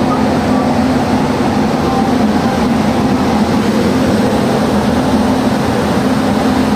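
Indian Railways passenger coaches rolling past close by along the platform: a steady rumble of wheels on the rails with a low hum underneath.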